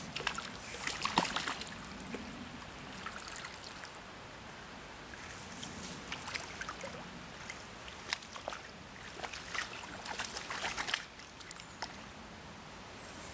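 Splashing of a hooked brown trout thrashing at the surface as it is drawn in and landed by hand at the water's edge, in several short bursts, over the steady flow of the river.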